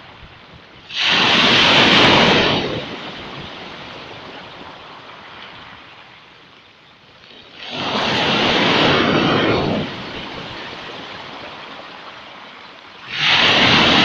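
Black Sea waves breaking on a pebble beach: three crashes, roughly six seconds apart, each lasting a couple of seconds, with a quieter wash of water over the shingle between them.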